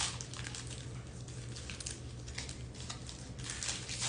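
Panini Prizm football cards being flipped through quickly by hand: a run of irregular light clicks and slides of card against card. A low steady hum runs underneath.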